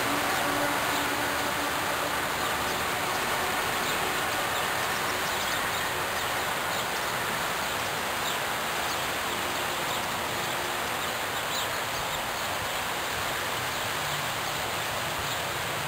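Steady outdoor background noise with faint, brief bird chirps now and then.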